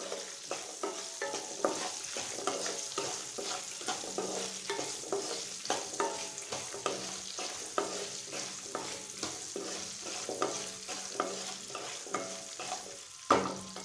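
Shallots, dried red chillies and garlic sizzling in hot oil in a non-stick kadai while a spatula stirs them, with many short scrapes and clicks against the pan. The shallots are being sautéed until they turn translucent.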